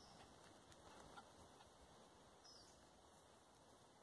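Near silence: faint outdoor hiss with two faint, short, high bird chirps, one at the start and one about two and a half seconds in.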